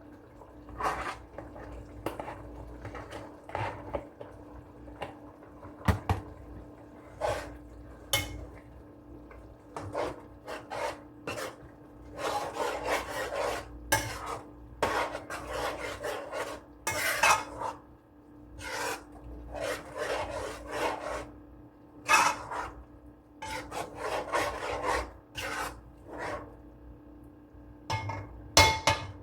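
Kitchen utensil scraping and rasping against cookware in repeated bursts, some lasting a second or two, with short knocks and clinks in between, over a steady low hum.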